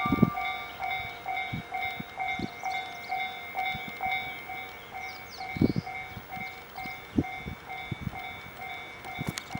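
Electronic level crossing bell ringing steadily, about three strikes a second, as a KiHa 189 diesel railcar pulls away, with irregular low thumps from the train.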